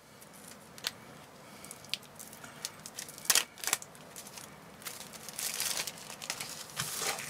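Clear plastic shrink-wrap being torn and pulled off a deck of game cards, crinkling and crackling in short spells. The loudest rips come a little over three seconds in, with a longer stretch of crinkling around five to six seconds.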